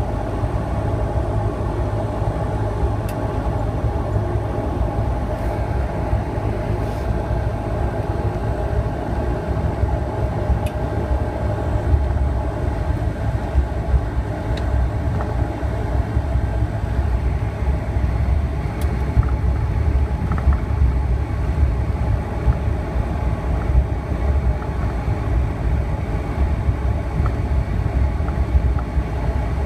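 Turboprop engine and propeller running steadily at low power, heard from inside the cabin as the aircraft taxis: a constant deep drone with a steady hum over it.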